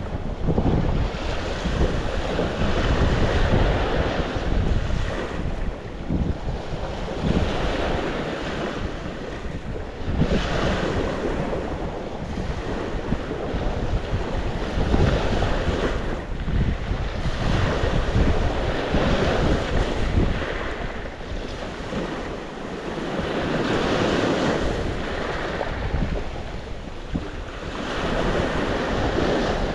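Sea waves surging and breaking on the shore, the wash swelling and easing every few seconds, with wind buffeting the microphone in a low rumble.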